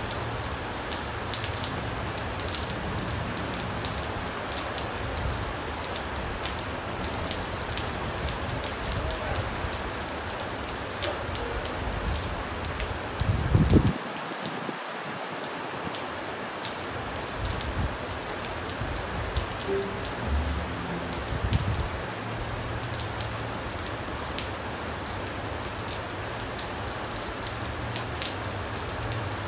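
Steady rain falling, an even hiss with many separate drops ticking against a surface. A brief louder low rumble comes about halfway through, and the deep part of the sound then drops away for a few seconds.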